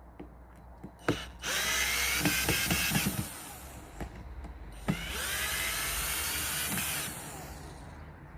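Power drill running in two bursts of a second and a half to two seconds each, the motor whine rising as it spins up, with a sharp knock just before each burst.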